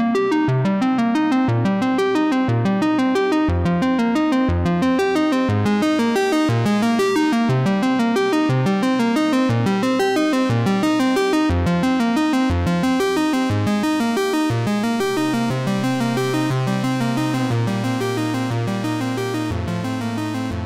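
Background music: a synthesizer and keyboard track with a steady beat, fading down a little near the end.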